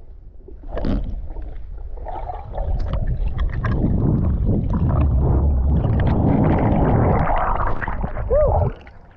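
Underwater water rush and rumble on a handheld action camera's housing as a breath-hold diver swims up from the lake bottom, building about two and a half seconds in. It cuts off sharply near the end as he surfaces, with a brief vocal sound just before.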